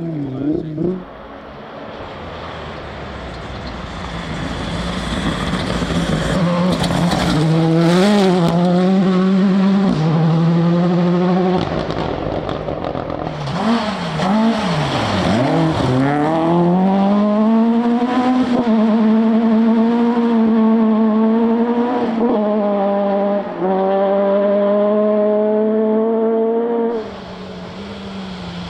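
Rally car engine running hard on a forest stage. The note builds as the car approaches, falls and wavers as it slows about halfway through, then climbs steeply as it accelerates away. It holds high revs with a couple of brief gear-change breaks before dropping suddenly near the end.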